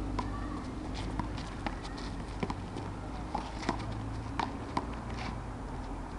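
One-wall handball rally: irregular sharp smacks of the small rubber ball off gloved hands, the concrete wall and the asphalt, mixed with quick footsteps, over a steady low rumble.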